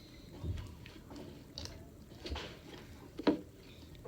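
Homemade glue slime being stirred with activator, making irregular short sounds, the loudest about three seconds in.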